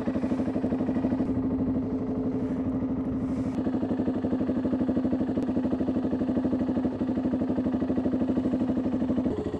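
BMW motorcycle engine idling steadily with an even pulse, becoming slightly quieter near the end.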